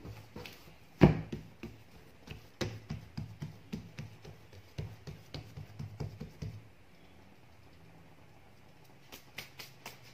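Hands pressing and patting soft brioche dough flat on a table: one loud thump about a second in, then a run of soft pats, about three a second, that stops about two-thirds of the way through. A few light taps follow near the end.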